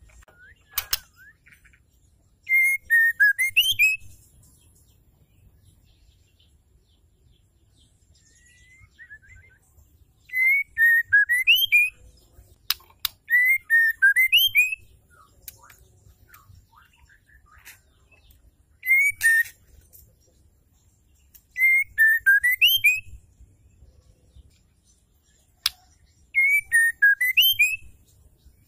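Female white-rumped shama calling: a short phrase of whistled notes that dips and then rises at the end, repeated about six times with pauses between. There are a few sharp clicks between the phrases.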